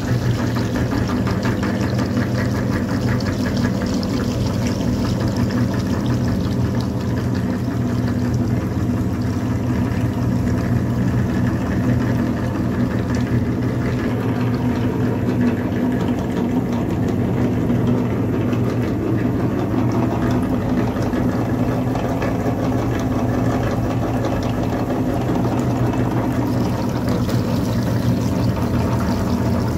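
Motor-driven meat grinder running steadily, a constant low mechanical hum as it pushes soft jelly out through its plate.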